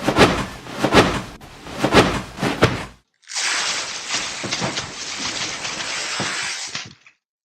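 Homemade sci-fi foley sound effects: four heavy hits about a second apart, then a dense crackling hiss lasting about four seconds that cuts off suddenly.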